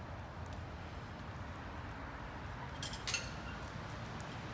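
Low, steady outdoor background rumble, with a short cluster of light clicks about three seconds in.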